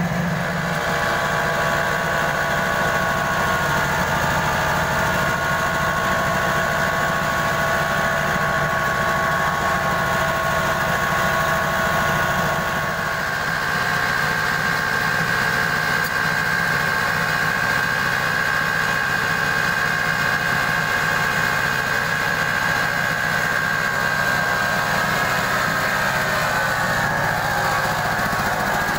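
Mobile rice mill running under load, milling paddy into rice: a steady drone from its diesel engine and the huller, with a steady high whine from the spinning rotor and blower.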